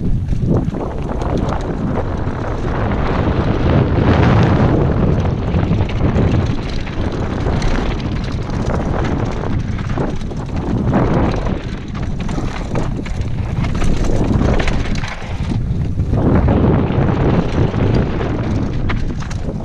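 Downhill mountain bike descending a dirt trail at speed: wind buffeting the helmet-mounted microphone in a loud, continuous rumble, with the tyres rolling on dirt and frequent short knocks and rattles as the bike goes over bumps.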